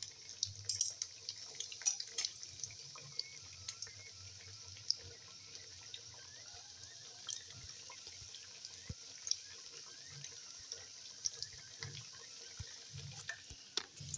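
Whole slit brinjal deep-frying in hot oil in a kadai: a steady sizzle with many small crackles and pops, and a few sharper clicks of a metal spatula against the pan in the first couple of seconds.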